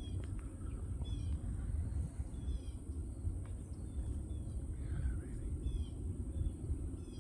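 Birds calling outdoors: a series of short, high, down-slurred chirps repeating every half second to a second, with a mewing call about five seconds in, over a steady low rumble.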